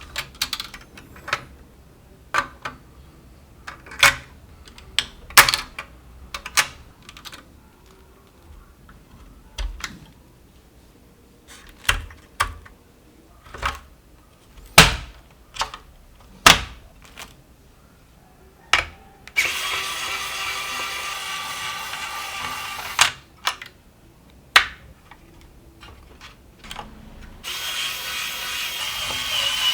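Sharp clicks, taps and knocks of computer parts being handled and fitted in place. There are two runs of a small power tool whirring, about three seconds long past the middle and a shorter one near the end.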